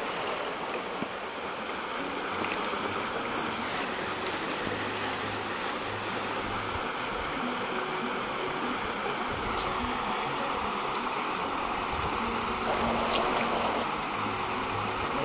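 Shallow, rocky stream flowing steadily, with a brief splash of a hand in the water near the end.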